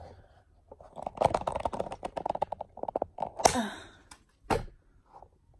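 Close handling noise from adjusting the phone in its ring-light phone mount: a quick run of plastic clicks and rattles, then a scrape and a single thump.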